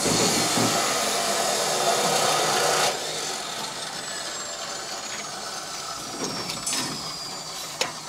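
A power tool runs loudly and steadily, then cuts off suddenly about three seconds in, leaving fainter steady background noise.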